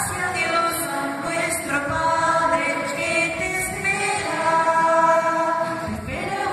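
Female voices singing a slow song in chorus, holding long notes one after another.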